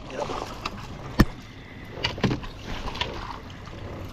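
A smallmouth bass being netted at a kayak's side: water splashing as the fish thrashes in the landing net, with a sharp knock about a second in and a few softer knocks as the net is brought aboard.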